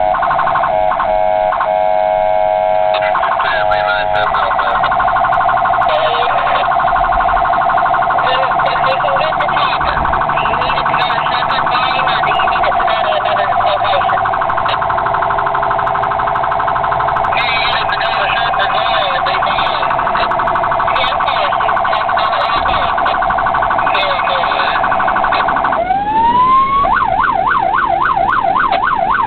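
Electronic siren of an emergency response vehicle running on a call. It starts as broken, pulsing tones, settles into a fast steady warble, and about 26 seconds in winds up into a rapid yelp sweeping up and down about three times a second.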